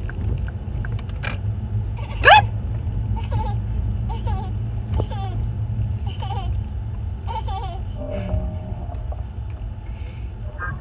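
Steady low road and engine rumble inside a moving car's cabin. A short high rising vocal sound comes about two seconds in, followed by scattered brief bits of laughter or voice.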